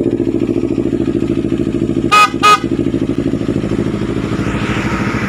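A CFMoto motorcycle idling steadily while its newly installed PIAA aftermarket horn gives two short, loud toots in quick succession about two seconds in.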